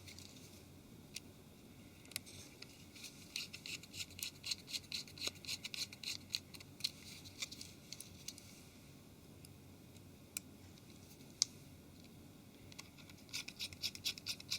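Small T4 Torx screwdriver driving tiny screws into a mobile phone's frame, giving a run of quick, faint ticks from the bit and screw. The ticking runs for several seconds, stops, and starts again near the end for the second screw.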